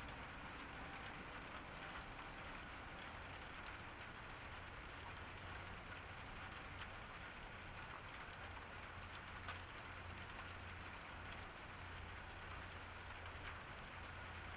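Steady summer rain falling on a garden, an even hiss with scattered drops ticking and a couple of slightly louder drips in the middle, over a faint low steady rumble.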